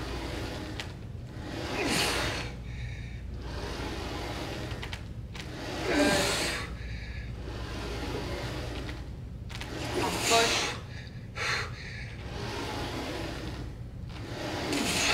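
A man exhaling hard and grunting with strain every few seconds while pushing through heavy hack squat reps, over a steady low hum.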